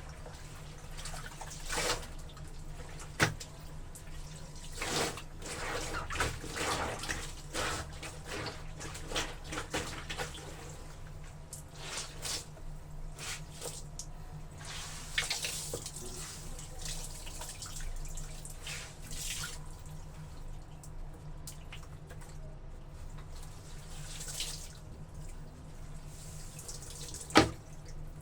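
Water splashing and dripping as laundry is washed, in irregular splashes, with two sharp knocks, the louder one near the end. A steady low hum runs underneath.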